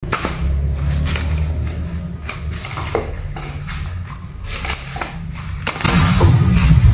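Rolled coloured-paper toy crinkling and crackling in quick, irregular snaps as a cat paws and bats it over a tile floor, over a low steady drone that gets louder near the end.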